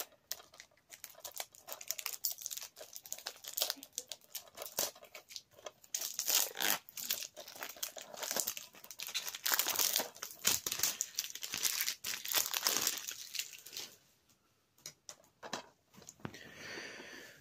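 Plastic wrapping being torn off a DVD case and crumpled. It makes irregular crackling and crinkling, busiest in the middle, with a short lull near the end.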